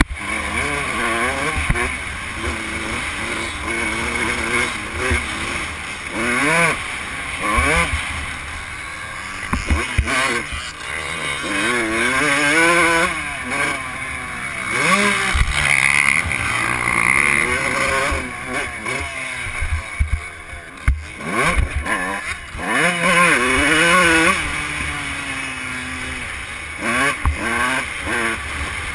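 Motocross dirt bike engine, heard from the rider's camera, revving up and down over and over as it accelerates, shifts and shuts off around the track, with scattered sharp knocks from the bike hitting bumps.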